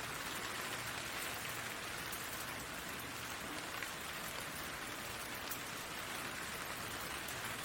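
Steady rain falling on leaves: an even hiss with scattered individual drops ticking through it.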